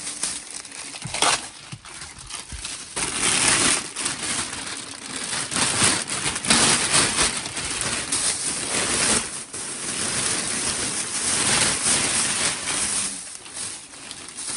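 Clear plastic storage bags full of stuffed toys crinkling and rustling as they are handled and shifted, with uneven bursts of crackling.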